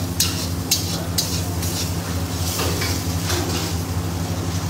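Spoon stirring and scraping a thick spice masala frying in oil in a steel kadai, with three sharp clinks of the spoon on the pan in the first second or so and a soft sizzle. A steady low hum runs underneath.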